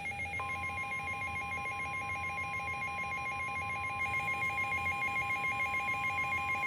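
Midland WR-300 weather radio's alert alarm: an electronic tone rapidly alternating between two pitches. About half a second in, the steady 1050 Hz NOAA Weather Radio warning alarm tone joins it, the signal that a warning is being broadcast, here a flash flood warning.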